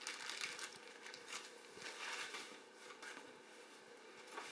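Faint rustling and scattered light clicks of hands handling a small plastic speaker voice box and its wrapping.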